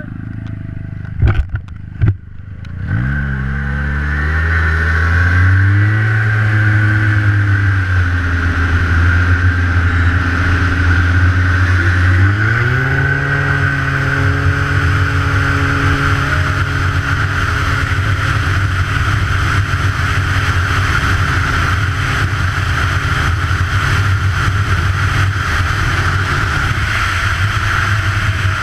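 Two short knocks, then an engine pulling hard from low speed about three seconds in: its pitch climbs, levels off, climbs again around twelve seconds in, then holds steady at high speed under a loud rush of wind.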